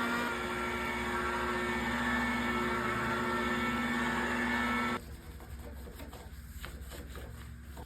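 Electric power tool motor running steadily with a constant hum, as used for sanding and polishing a fiberglass surfboard; it cuts off abruptly about five seconds in, leaving a few faint light clicks.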